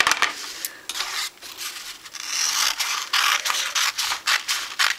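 Scissors cutting through a sheet of paper in a run of quick snips, with the paper rustling; the cutting gets louder and denser about two seconds in.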